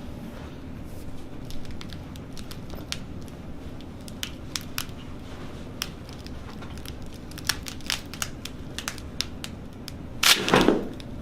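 Many small scattered clicks and crackles, then one loud burst about ten seconds in.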